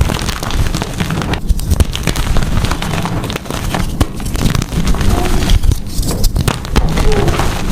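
Blocks of gym chalk being crushed and crumbled, a dense run of crunching and crackling with many small snaps over heavy low thuds.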